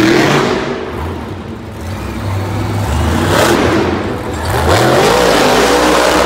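Monster truck's supercharged V8 revving hard in repeated surges, its pitch climbing sharply just after the start and again about four and a half seconds in, as the truck launches and rears up on its back wheels.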